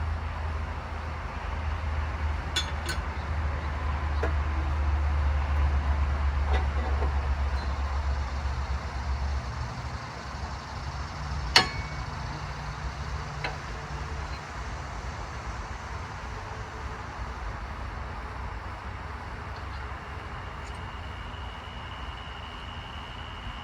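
Metal clinks from tools and parts being worked on a truck's CV axle, with one sharp knock about eleven seconds in. A low vehicle rumble swells and fades over the first ten seconds.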